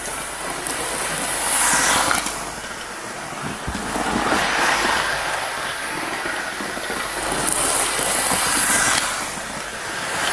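Hornby Railroad A4 'Mallard' OO gauge model locomotive running at full speed: its electric motor whirring and its wheels rattling over the plastic-sleepered track, the noise swelling and fading about three times as it passes close by.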